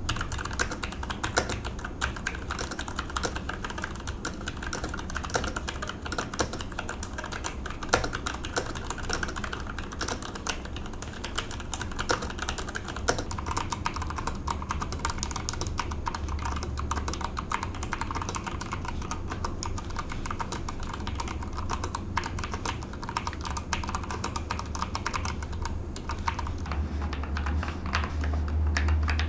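Continuous fast typing on a mechanical keyboard with tactile switches (Outemu Brown and Logitech Romer-G Tactile), a dense run of key clicks and bottom-outs over a low steady hum.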